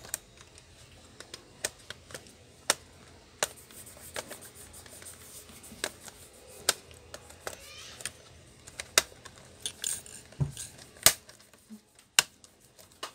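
Irregular sharp clicks and snaps of a Lenovo Y460 laptop's plastic hinge-cover panel being pried and worked loose by hand.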